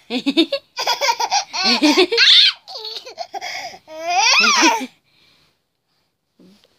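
A baby laughing hard in quick bursts, some of them high-pitched, that stop about five seconds in.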